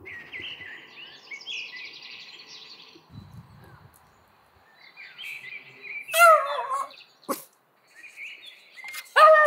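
Songbirds chirping and singing. A dog gives a short, loud, falling yelp about six seconds in and another at the very end, with a sharp click between them.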